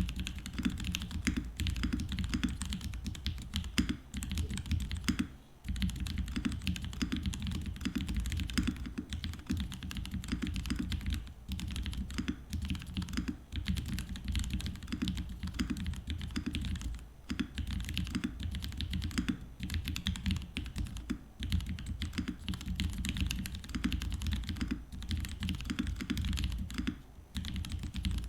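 Continuous typing on an L-Lab Voice 65 gasket-mount 65% mechanical keyboard fitted with Cap switches and ABS doubleshot keycaps: a dense run of keystroke clicks, with a couple of short pauses.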